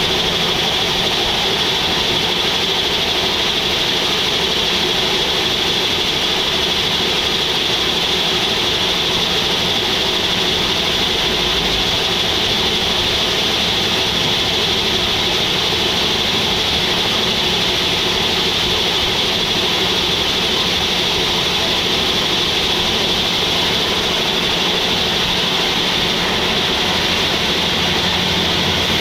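Band sawmill running steadily: a continuous mechanical drone with a high, even whine.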